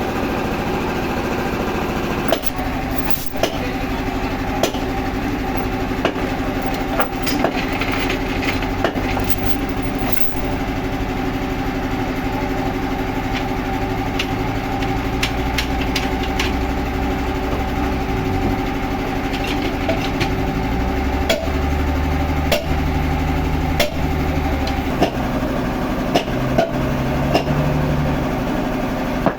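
An engine running steadily, with frequent sharp knocks and clatters over it; a deeper low hum comes in about halfway through.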